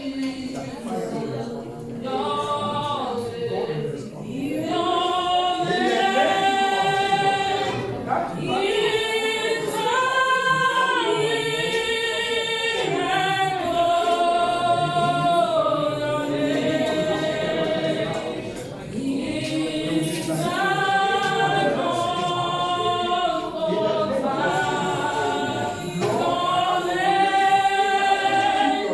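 Congregation singing a gospel worship song in unison and harmony, with no audible accompaniment; long held notes that rise and fall phrase by phrase.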